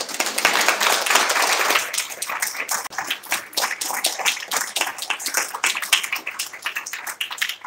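Audience applauding, densest in the first two seconds, then thinning to scattered claps that die away near the end.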